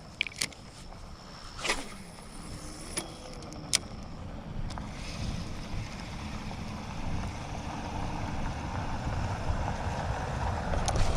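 Wind rumbling on a GoPro's microphone outdoors, growing gradually louder, with a few sharp clicks in the first few seconds.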